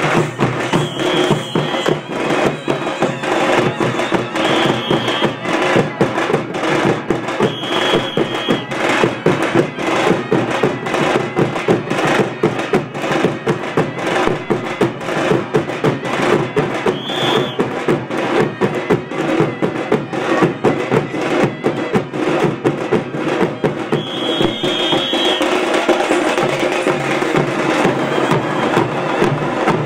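A troupe of dappu frame drums beaten with sticks in a fast, dense, continuous rhythm. Short high-pitched tones sound over the drumming several times.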